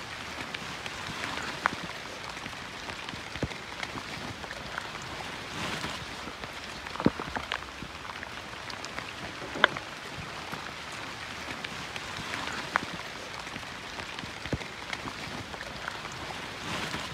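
Steady rain falling, with a sharp tick every few seconds standing out above the patter.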